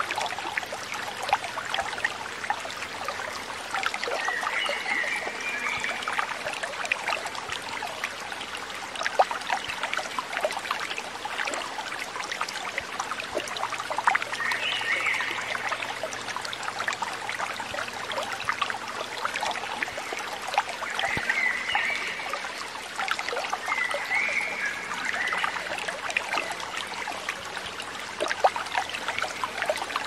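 Shallow water trickling steadily, full of small ticks and splashes. A few brief higher-pitched sounds rise over it now and then.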